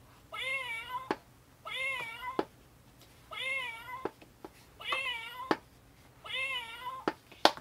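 The same recorded cat meow played five times by the sound chip in an Exploding Kittens card-game box as its lid is opened, each meow followed by a sharp click of the lid snapping shut.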